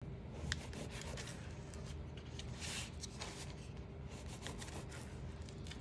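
A kitchen knife cutting through a croissant on a plastic cutting board: faint crackling and rasping of the flaky crust, with small ticks as the blade works through.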